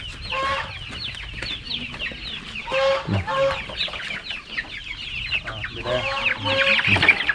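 A crate of young local black-breed chickens peeping and cheeping constantly in a dense chorus of short, high, falling calls. A few louder, lower calls break in about three seconds in and again near the end.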